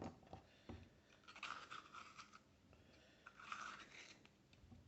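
Small kitchen knife cutting through raw bell pepper on a chopping board: faint crisp cuts in two short runs, about a second and a half in and again about three and a half seconds in, with a few light knocks of the blade on the board.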